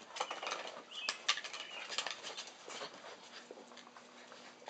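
Labrador puppies' paws and claws pattering and scrabbling on a concrete floor and raised dog cots as they play: a run of light, irregular clicks and taps.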